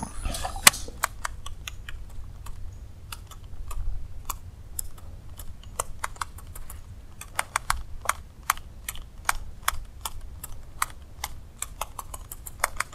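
Baitcasting reel and rod clicking as a stick lure is twitched and the line wound in: many sharp, irregular clicks, a few a second, some in quick runs.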